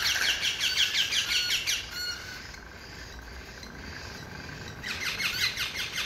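Parakeet chicks calling from their cages: a fast run of high, shrill squawking chirps, dying down after about two seconds and starting up again near the end.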